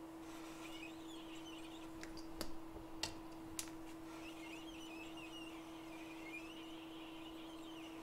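A metal blade scraping and clicking against a phone logic board: three sharp clicks about half a second apart near the middle, over a steady electrical hum and faint wavering high chirps.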